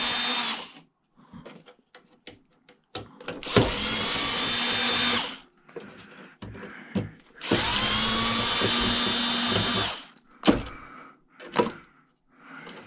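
A power drill driving screws out of a cash register's casing. It runs in short bursts: one ends just after the start, and two more of about two seconds each follow. Each burst spins up quickly and then holds a steady whine. Small clicks and knocks come between the bursts, as screws and parts are handled.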